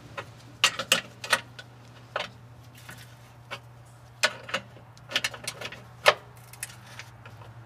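Wrenches clinking and clicking on the rear suspension adjusters and lock nuts of a lowered car: about a dozen sharp metal clicks at irregular intervals as the rear lower control arm's camber and toe adjustment is made.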